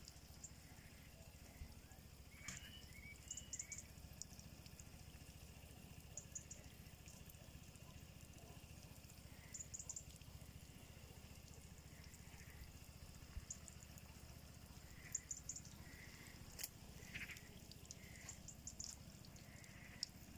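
Near silence: faint outdoor ambience with a low steady rumble and scattered faint, short chirps, like distant small birds.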